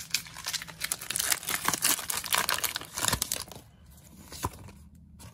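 Foil booster-pack wrapper of Pokémon trading cards being torn open and crinkled. A dense run of crackling and tearing lasts about three and a half seconds, then dies down to quieter rustling.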